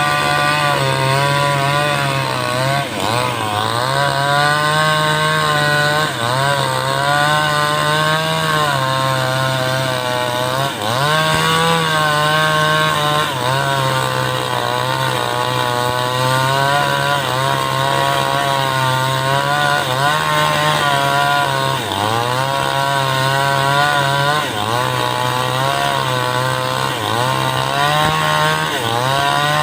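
A 5800-type two-stroke chainsaw with a 22-inch bar, running at high revs and ripping lengthwise through a teak log. Its engine pitch dips every few seconds as the chain bogs in the cut, then climbs back.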